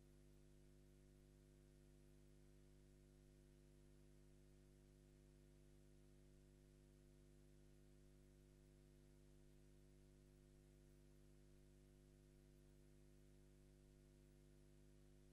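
Near silence: only a faint, steady hum with a low hiss, unchanging throughout.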